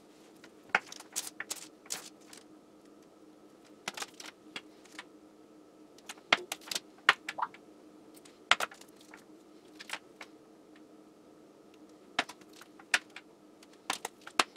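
Test leads with metal clips and banana plugs being handled and set down on a bench: scattered light clicks, clatters and a few sharper taps at an uneven pace.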